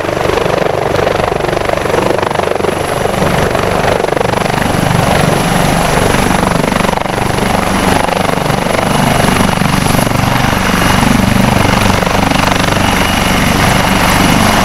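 Leonardo AW149 twin-turbine military helicopter hovering low and setting down, its main rotor running with a rapid, even blade beat over a steady high turbine whine.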